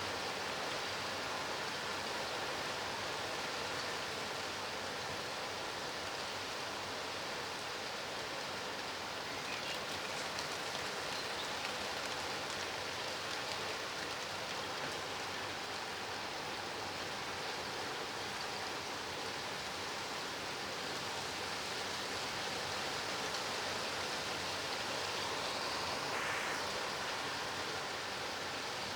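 Steady rain falling, an even continuous hiss that swells slightly near the end.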